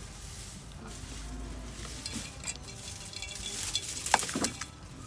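Raw fish paste being worked by hand in a bowl, with a wet, stirring texture and a couple of sharp knocks against the bowl about four seconds in.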